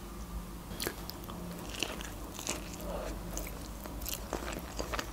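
A person chewing sushi, with scattered soft wet mouth clicks and smacks at an irregular pace.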